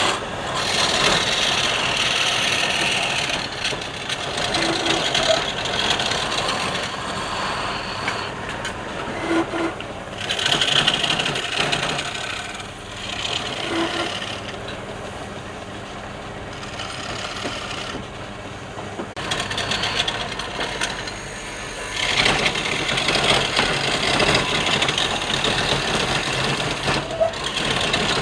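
Wood lathe running with a steady motor hum while a turning tool cuts the spinning wood in passes, the scraping cut swelling and easing off every few seconds.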